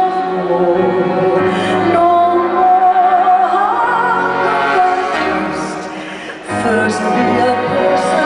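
A woman singing a slow ballad live into a microphone over held accompaniment, with a short lull about six seconds in before the next phrase starts.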